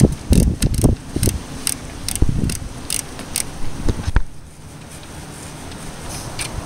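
Hand ratchet clicking in short, uneven runs as it is worked back and forth on a bolt, with low bumps of handling. One last sharp click about four seconds in, then only a faint steady background.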